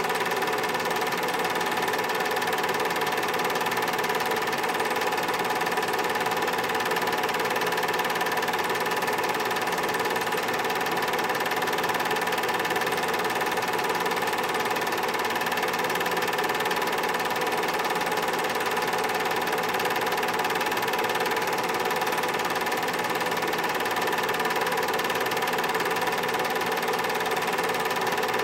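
Film projector running: a steady mechanical whir and hum from its motor and film transport, unchanging throughout.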